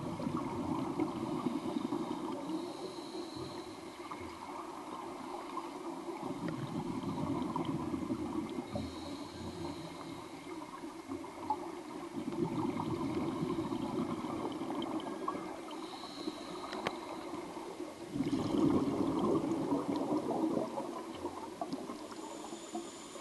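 Underwater scuba breathing: exhaled air bubbling out of a diver's regulator in surges every few seconds, with fainter hissing between them.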